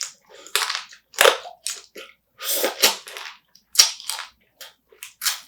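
Close-miked chewing and crunching on spicy marinated raw crab, a string of sharp, irregular crunches.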